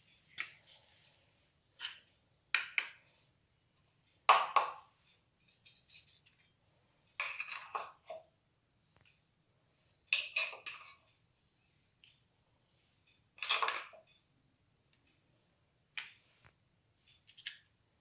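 Tableware being handled: short knocks and clinks as a plastic chutney bowl and a steel spoon are set on a plate. They come every two to three seconds, the loudest about four seconds in.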